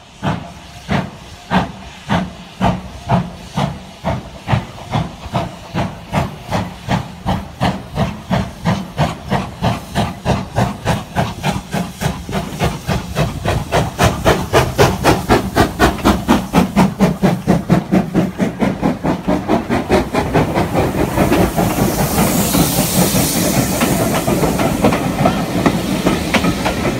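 GWR Modified Hall 4-6-0 steam locomotive 6960 Raveningham Hall working a train away from the station, its exhaust beats quickening from slow chuffs to a fast, even rhythm as it gathers speed and draws closer. Near the end a loud hiss of steam comes as the engine passes, then the coaches roll by.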